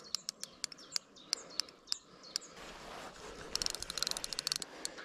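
Fixed-spool fishing reel clicking irregularly while a hooked barbel is played, with a quicker run of clicks about three and a half seconds in. Birds chirp alongside.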